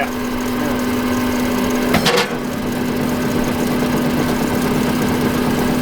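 An old sawmill's drive machinery running steadily with an even hum, switched on and turning but not yet cutting. A short sharp clank sounds about two seconds in.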